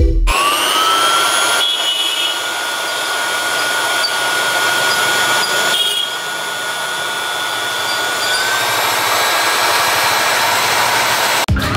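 Steady rushing hiss with a high, steady whine from a motor-driven fan running at a charcoal barbecue grill. The whine rises slightly in pitch about eight seconds in.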